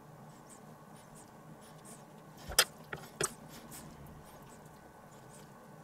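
A few light clicks and knocks of kitchen utensils being handled on a wooden cutting board, with two sharper clicks about two and a half and three seconds in, over a faint steady room hum.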